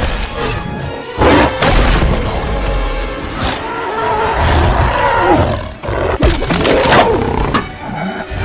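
Film soundtrack of a monster fight: dramatic music with deep animal roars and growls from the giant gorilla and the dinosaur. Heavy thuds land about a second in and again near six and seven seconds in.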